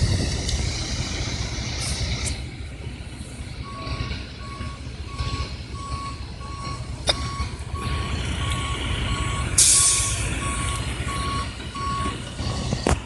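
Backup alarm on a heavy road-work vehicle beeping steadily, about one and a half beeps a second, starting about four seconds in, over the low running of a diesel engine. About two-thirds of the way through there is a short burst of air hiss, like an air brake.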